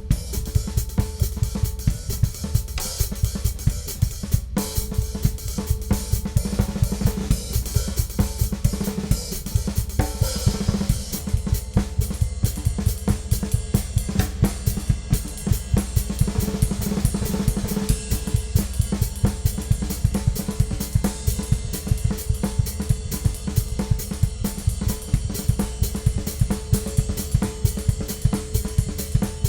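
Ludwig Classic Maple drum kit played in a steady, busy groove: bass drum, snare, hi-hat and cymbals struck continuously, with a split-second break about four and a half seconds in.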